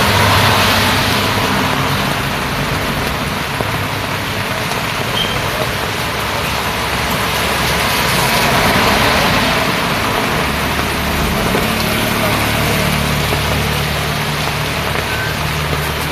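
Steady rain on a wet road with traffic: vehicles swish past, with louder passes near the start and around the middle, and a vehicle engine running low and steady through the second half.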